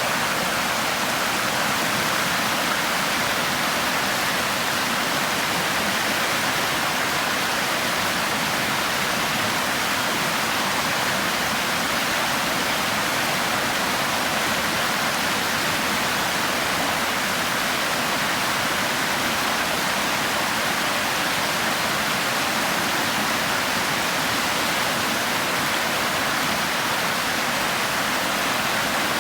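Flooded creek running high over a trail: a steady, unbroken rush of fast-flowing floodwater.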